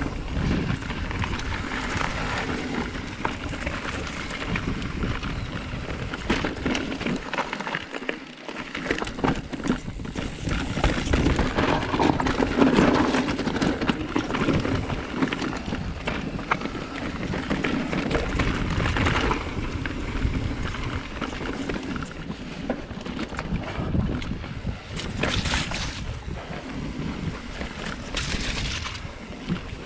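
Mountain bike riding down a rough dirt trail: wind buffeting the camera microphone, with tyres crunching over dirt and rocks and the bike rattling over bumps.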